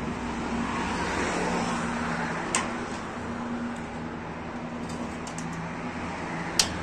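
Two sharp metallic clicks about four seconds apart, the second louder, as a hand-operated sheet-metal bending brake is clamped and worked. Under them runs a steady hum and a traffic-like rumble.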